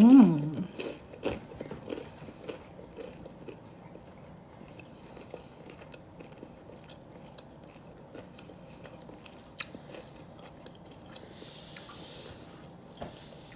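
Someone biting and chewing crusty homemade French bread close to the microphone, with scattered crunchy clicks, most of them in the first few seconds. It opens with a brief hummed vocal sound.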